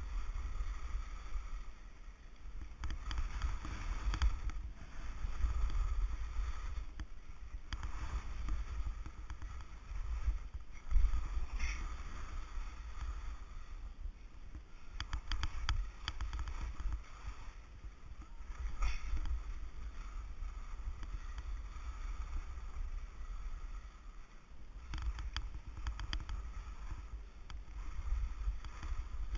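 Wind buffeting the microphone of an action camera carried by a moving skier, with skis hissing and scraping over the snow, swelling and fading with each turn.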